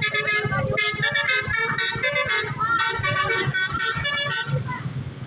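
Bus fitted with a basuri telolet multi-tone horn playing a quick melody of stepped notes, which cuts off about four and a half seconds in.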